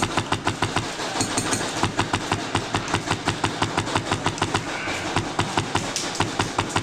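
Airsoft gun firing a long sustained string of shots, an even clicking of about seven shots a second over a steady hum.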